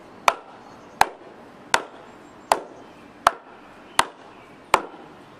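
Rubber mallet striking northern white cedar tenons, driving them down into their mortises in the log table. Seven sharp, evenly spaced strikes, about one every three-quarters of a second.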